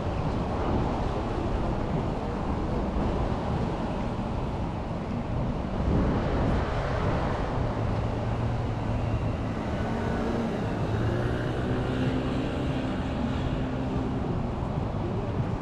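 Road traffic going by, a steady low rumble of vehicles passing, with a louder engine hum from about halfway through.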